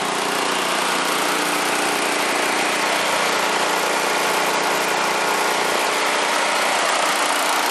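Honda engine running steadily on wood gas from a gasifier, driving an alternator.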